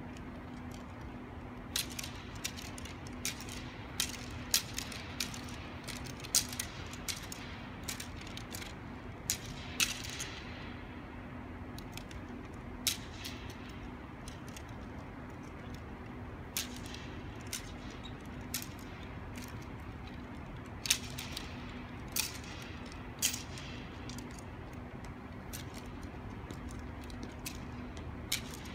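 Steady hum of the blowers that keep an air-supported sports dome inflated, with scattered sharp clicks and ticks every second or two.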